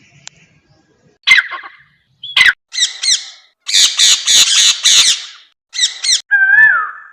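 Bird calls of several kinds in turn: a few short harsh squawks, then a rapid, repeated chattering call for about two seconds in the middle, then a clearer call that dips and rises in pitch near the end, with short silent gaps between them.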